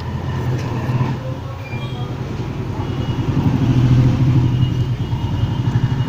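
A motor vehicle's engine running with a low, steady rumble that grows louder around the middle.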